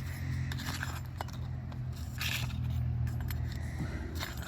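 Scraping and a few sharp clicks against asphalt roof shingles as an old shingle and the nail still holding it are worked loose, with a longer scrape about two seconds in, over a steady low hum.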